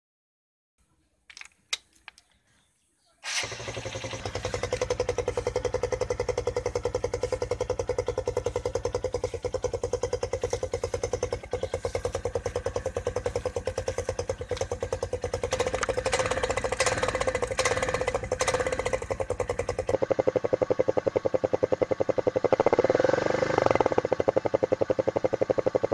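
A small 100cc TVS motorcycle engine catches about three seconds in after a few faint clicks, then runs at idle as a rapid stream of exhaust pulses. A drinks can wired over the silencer outlet changes the exhaust note, meant to imitate a Royal Enfield's popping thump. It revs up briefly near the end.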